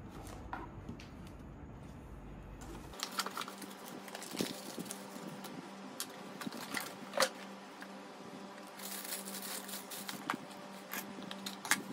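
Unboxing handling noise: cardboard packaging flaps and inserts being moved, with scattered small clicks and taps, then a clear plastic bag crinkling near the end.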